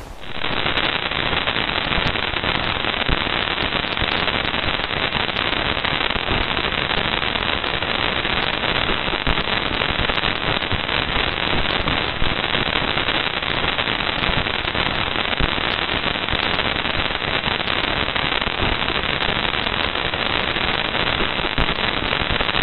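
Parker Solar Probe plasma-wave data converted to sound: a dense, steady crackling hiss full of sharp pops.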